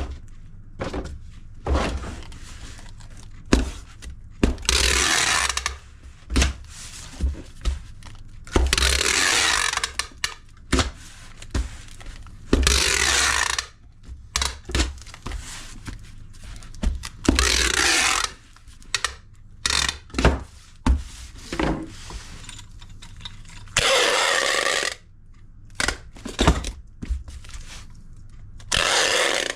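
Parcel packing by hand: about six one-second rasping pulls of packing material off a roll, among many thunks, knocks and scrapes of items and cardboard boxes being handled.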